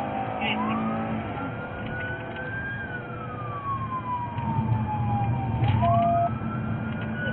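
Emergency vehicle siren on a slow wail, its pitch rising, falling and rising again over several seconds, heard from inside a car, over the low rumble of engine and road noise that grows louder about halfway through.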